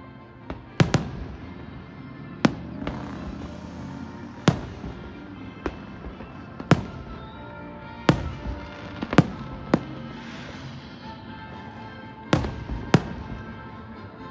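Aerial fireworks bursting, about a dozen sharp bangs at uneven intervals, some followed by a crackling hiss. Music plays steadily underneath.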